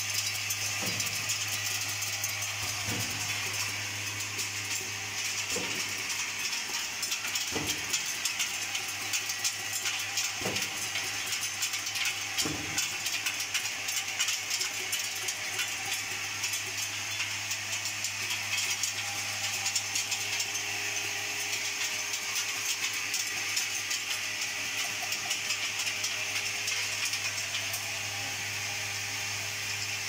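Automated connector inspection, sorting and bagging machine running: a steady low hum and hiss under fast, continuous rattling and clicking of small plastic parts, with a few low thumps in the first half.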